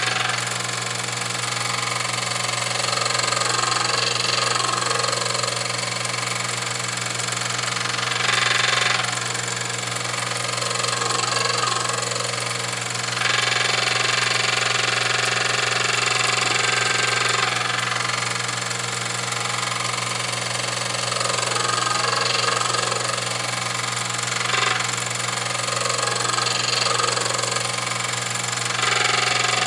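Grinding wheel on a lathe grinding attachment running with a steady motor hum, grinding the radius on a small form tool. A hissing grind swells and eases repeatedly as the tool is worked against the wheel.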